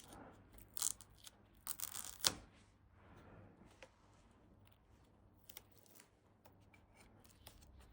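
Wrapping tape being peeled off an electric bike's wiring harness: faint crackling and rustling, with a few louder tearing rasps in the first two and a half seconds, then scattered small clicks.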